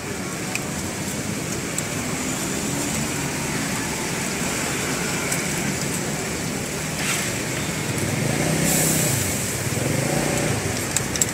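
Steady street traffic noise with a vehicle passing about eight seconds in, over oil frying in a wok; a few sharp clicks of a metal spatula against the wok near the end.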